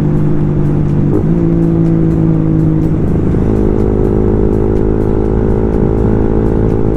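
Suzuki Raider Fi's single-cylinder four-stroke engine running at a steady cruise, with wind and road noise. Its note shifts about a second in and again around three and a half seconds in.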